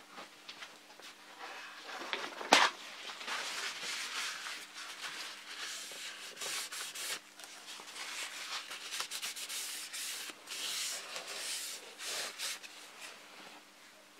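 Hand sanding: sandpaper rubbed over a model airplane's fuselage in irregular strokes, with one sharp knock about two and a half seconds in.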